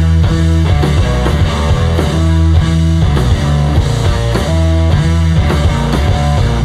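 A live rock band playing, with electric guitar over a heavy bass line and a steady drum beat.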